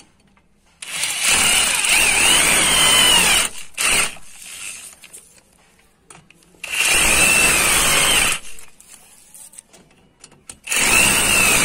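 Electric drill driving a socket, made from a nut ring welded onto a drill bit, to run down the nuts on a dish antenna bracket's wall anchor bolts. It runs in three bursts of about two seconds each, a second or so after the start, near the middle and near the end. The motor's whine wavers in pitch as the nut takes up.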